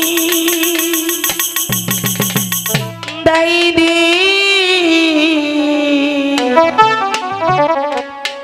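Live Bengali jatra music: steady instrumental chords over a fast, even jingling percussion rhythm, then a woman's wavering, mournful sung line with vibrato over the band, breaking into quicker stepped notes near the end.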